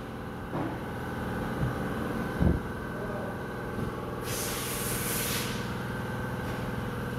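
A steady mechanical hum holding one pitch, with a single knock about two and a half seconds in and a hiss of rushing air lasting about a second, starting about four and a half seconds in.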